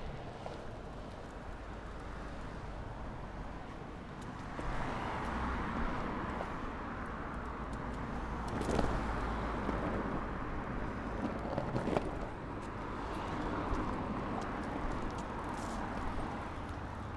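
Longboard wheels rolling over a paving-slab pavement, a steady rolling rumble with a few sharp clicks, growing louder about four seconds in after a kick-push. Road traffic passes alongside.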